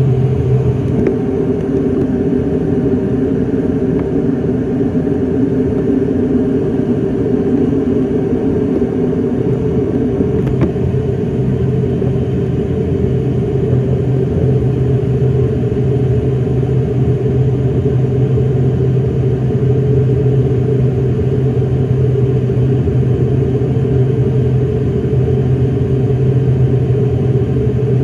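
ATR 42-600's Pratt & Whitney PW127 turboprop engines running steadily with the aircraft stationary, a loud humming drone heard inside the cabin. The engine note shifts slightly about ten seconds in.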